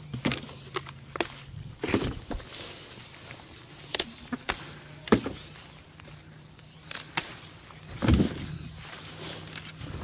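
Bell pepper plants being handled while peppers are picked: leaves rustle, with scattered sharp snaps and clicks, the loudest rustle about eight seconds in. A low steady hum runs underneath.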